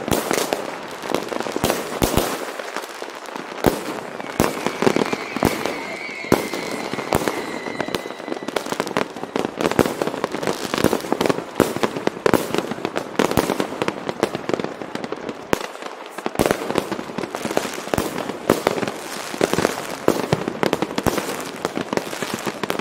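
Many fireworks and firecrackers going off in a dense, irregular run of bangs and crackles. A high whistle, sliding slightly down in pitch, sounds for about four seconds starting about four seconds in.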